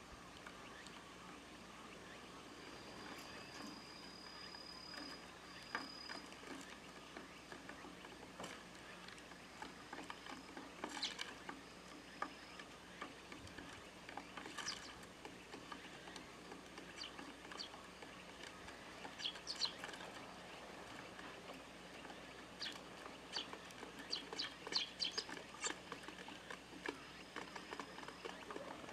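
Eurasian tree sparrows giving scattered short chirps while pecking at seed, with small ticks of pecking. The chirps come in little clusters, busiest in the second half, over a faint thin high tone that comes and goes.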